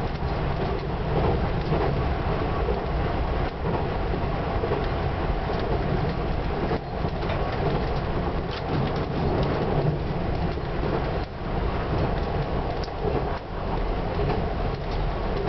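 Steady rumble of a diesel express train running at speed, heard from inside the front of the train: engine and wheels on the rails, with no announcement or horn.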